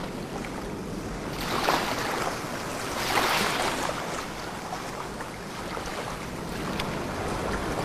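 Sea waves washing against the shore over a steady hiss, with two louder surges in the first few seconds.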